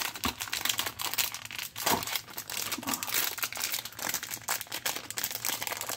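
Thin clear plastic wrap crinkling and crackling as it is pulled and torn off a speed cube, a dense irregular stream of small crackles.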